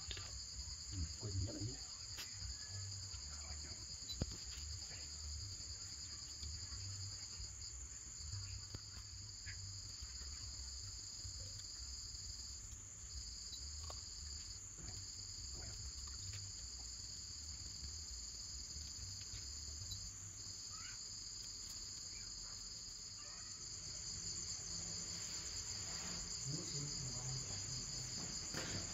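Insects trilling steadily at a high pitch, two overlapping trills with a few brief breaks, over a faint low rumble.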